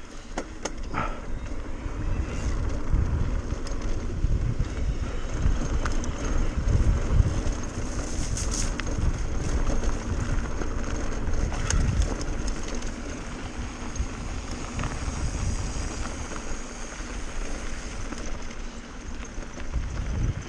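Mountain bike descending a dirt trail at speed: wind buffeting the microphone over the rumble of tyres on the dirt, with scattered clicks and knocks from the bike rattling over rocks.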